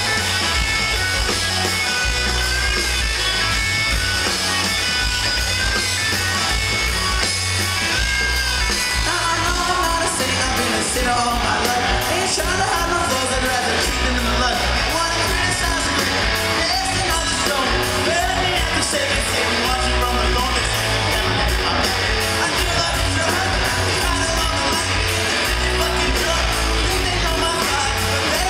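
Live rock band playing loud, with electric guitars, bass and drums; a singer's shouted vocals come in about a third of the way through.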